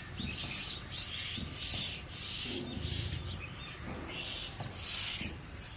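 Common mynas chattering in a tree: many short, overlapping calls from several birds at once, over a low steady rumble.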